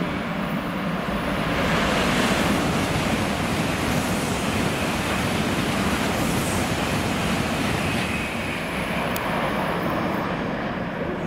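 N700S Shinkansen trainset passing through a station at speed: a steady rush of wheels on rail and air along the carriages, swelling about two seconds in and easing off toward the end.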